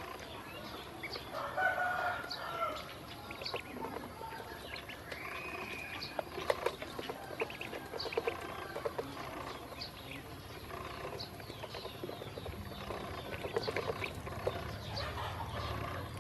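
A group of ducklings calling with a few short peeps while their bills tap and dabble at the waterer's tray and the metal bowl, making many small clicks, some in quick runs.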